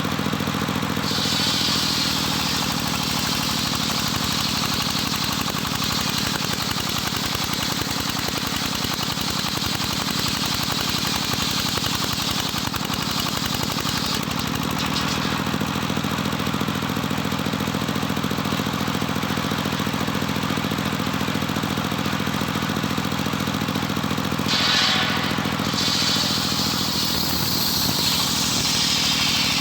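Homemade circular sawmill running steadily, its blade ripping lengthwise through jetos timber with a high hiss over a steady motor drone; the hiss of the cut drops away briefly about halfway through.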